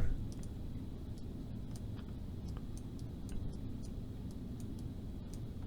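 Faint, irregular computer mouse clicks over a steady low background hum, as a shape is drawn in a 3D modelling program.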